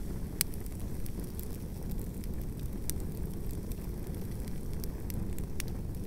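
Campfire burning shoes and a shoe rack: a steady low rumble of flames with scattered sharp crackles and pops, the sharpest about half a second in.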